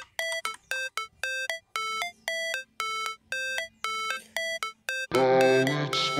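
Background music: a melody of short ringing notes, about four a second, joined about five seconds in by fuller music with low notes.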